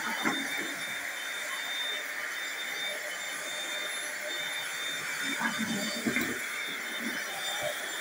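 Corded stick vacuum cleaner running steadily on a hardwood floor: a steady rush of air with a high whine over it. A few short knocks come about five to six seconds in.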